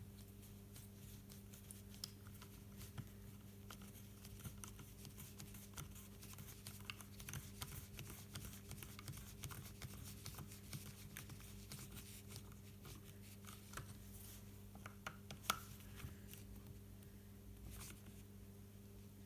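Faint, scattered clicks and ticks of a small screwdriver driving a screw into a drone's plastic arm hinge, with one sharper click about three-quarters of the way through. A steady low hum runs underneath.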